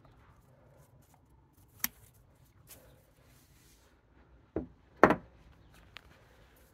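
Bonsai cutters snipping through thin privet branches: a sharp click about two seconds in and a fainter one shortly after, then two louder knocks around five seconds in, and a last small click near the end.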